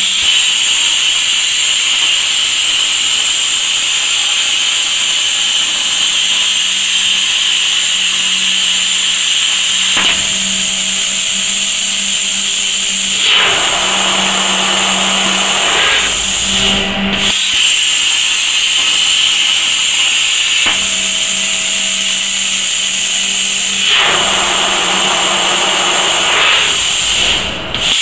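Robotic plasma cutting torch cutting a steel profile: a loud, steady, high hiss with a low hum that comes and goes. The hiss briefly drops out about halfway through and again just before the end, as the cut stops and restarts.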